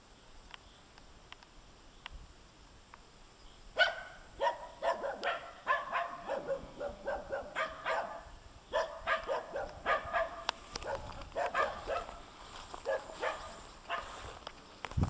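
A dog barking in quick runs of short barks, starting about four seconds in.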